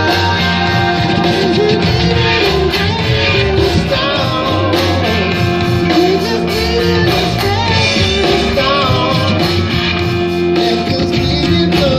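Music: a rock-tinged instrumental stretch of the track with guitar, a pulsing bass and a wavering melodic line, without rapping.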